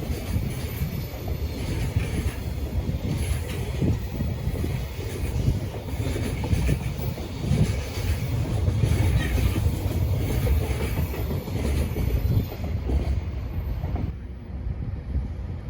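Container freight train rolling past at speed, its wagons' wheels rumbling steadily on the rails. The noise thins out near the end as the last wagons go by.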